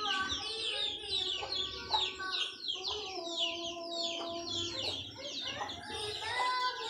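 Chicken chicks peeping continuously, a stream of short falling peeps, several each second.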